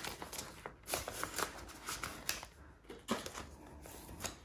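Faint, irregular flicks and rustles of a stack of polymer banknotes being counted out by hand, with the light crinkle of a plastic zipper envelope in a binder.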